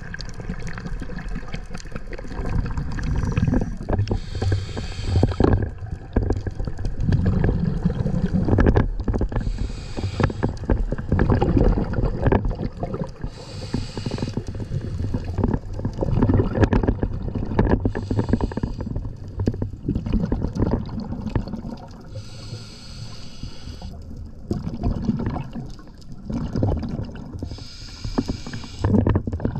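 Scuba diver breathing through a regulator underwater: a hiss about every four to five seconds, over a constant low rumble of water and bubbles.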